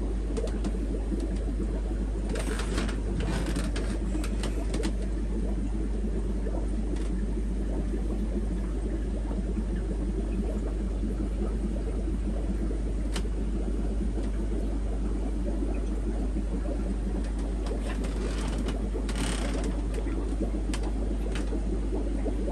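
Steady low hum and whir of aquarium pumps and filtration running, with a couple of brief rustling noises about three seconds in and again near nineteen seconds.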